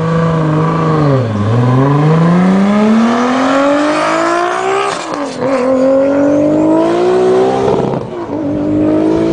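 A Toyota Supra MKIII's swapped 2JZ-GTE turbocharged straight-six is held at steady revs on the line, then dips as the car launches. It pulls hard up through the gears with a rising note, with upshifts about five and eight seconds in.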